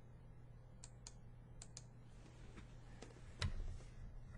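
Handling noise from a camera being moved back to widen the shot: a few light clicks in the first two seconds, then one louder thump about three and a half seconds in, over a steady low hum.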